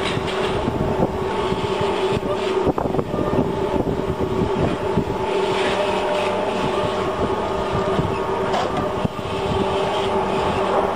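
Stainless-steel wire spiral scourer making machine running: a steady motor hum with a fast, continuous mechanical clatter.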